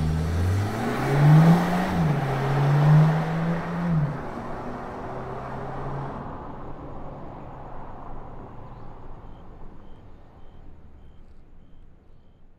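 Skoda Superb 4x4 estate with an NBDE valved exhaust, valves closed, accelerating away. The engine note rises and drops twice in the first few seconds, then fades steadily into the distance.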